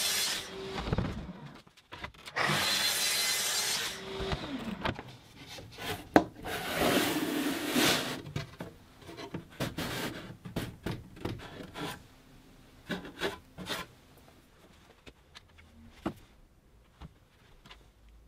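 Festool plunge track saw cutting birch plywood in two short runs, its motor winding down with a falling whine after the second. Then a scraping rub of the thin ply back sliding in the groove of the pine carcass, and scattered light wooden knocks and clicks as the pieces and clamps are handled.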